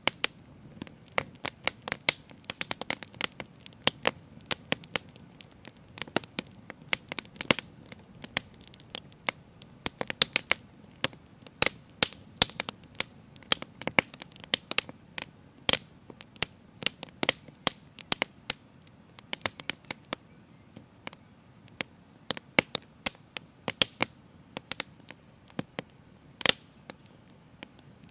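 Wood fire crackling: irregular sharp pops, several a second and some much louder than the rest, over a faint steady hiss.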